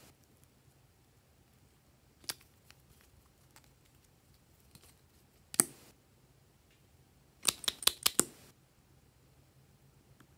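Sharp clicks and taps of small hard items being handled over a glass dish of slime: one click about two seconds in, a louder one past the middle, and a quick run of about six clicks near the end.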